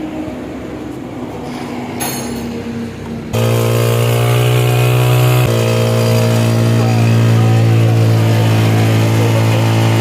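Honda CG125's air-cooled single-cylinder four-stroke engine running at a steady idle, turning suddenly much louder and deeper about three seconds in and then holding steady.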